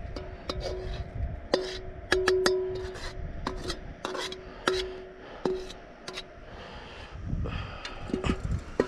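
Metal spatula scraping and knocking against a wok, working loose fried rice stuck to the pan and pushing it onto a steel plate; each knock leaves the wok ringing briefly.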